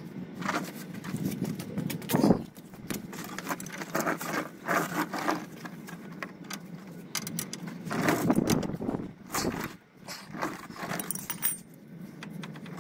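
Metal hand tools clinking and rattling against the van's front suspension and hub in short, irregular bursts of clicks while bolts are refitted.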